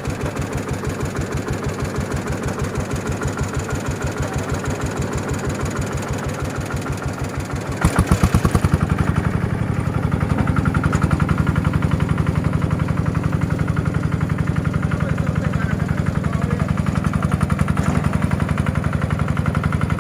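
Small engine of a QUICK QH 11 mini rice harvester running with an even, rapid pulse; about eight seconds in it gets louder and heavier, and it keeps running steadily at that level.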